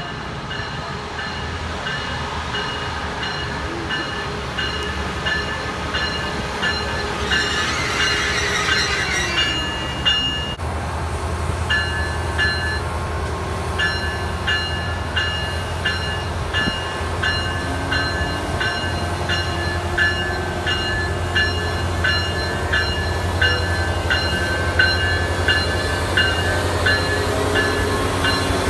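Siemens SC-44 Charger diesel locomotive arriving slowly at a station platform, its engine running low while its bell rings steadily at about two strokes a second. A short hiss comes about eight seconds in, and the bell pauses briefly just after it.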